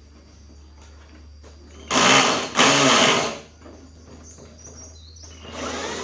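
A small motor whirring in two short bursts, about two and three seconds in, over a steady low hum.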